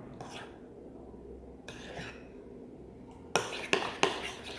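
A spoon stirring a still-runny glue-and-borax slime mixture in a bowl, scraping and clinking against the sides, with a few sharper knocks about three and a half seconds in.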